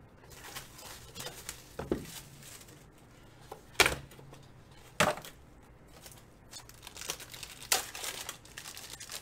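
A sealed trading-card box is torn open and a foil card pack is crinkled and ripped open, with several sharp tearing snaps, the loudest about four and five seconds in.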